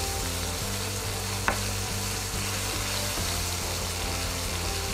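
Chicken hearts and chopped garlic sizzling in oil in a nonstick frying pan, stirred with a wooden spatula. There is one sharp tap about a second and a half in.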